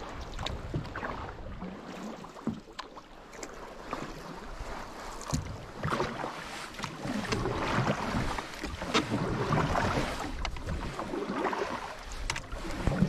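Canoe paddling: wooden paddles dipping and pulling through calm lake water, with splashes, drips and a few sharp knocks, plus some wind rumble on the microphone.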